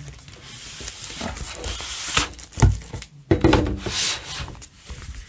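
Paper booklets and printed card inserts being shuffled and slid back into a large cardboard vinyl box set: paper rustling and rubbing, with a few sharp knocks of card against the box about two to three and a half seconds in.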